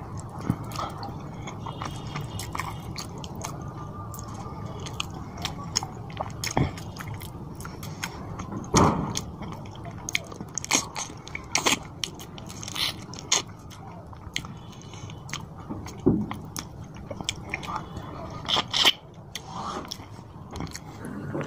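Close-up eating sounds: a man chewing and biting on a piece of curried fish with bones, with sharp crunches and wet mouth clicks scattered throughout.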